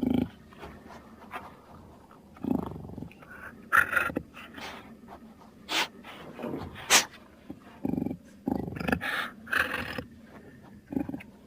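Dinosaur sound effects for Eoabelisaurus: a string of short animal-like growls and calls with pauses between them, with two brief sharp high-pitched sounds near the middle and a quicker run of short calls in the second half.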